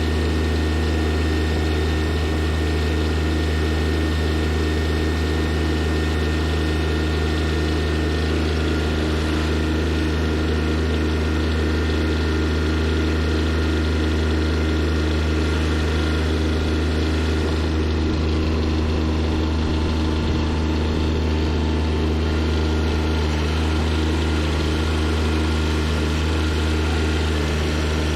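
Engine of a fork-equipped loader machine running steadily at an even speed, with no revving.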